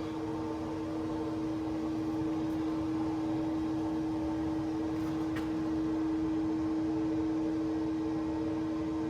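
A workshop machine's motor running at steady speed with an even, pitched hum. There are a couple of faint clicks about five seconds in.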